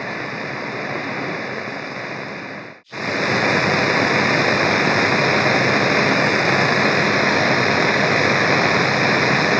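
Radio static hiss, steady. About three seconds in it fades out briefly, then a louder stretch of static starts and runs on steadily.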